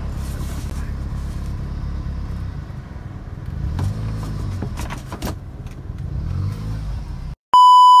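Car engine running steadily, a low rumble heard from inside the cabin, with a few light clicks in the middle. Near the end the sound cuts out and a short, loud, steady electronic beep tone follows: a glitch-transition sound effect.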